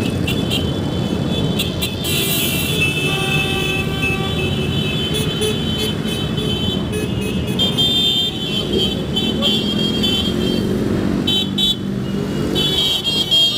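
Many motorcycles riding slowly past in a column, their engines running together in a steady rumble. Horns sound several times over it.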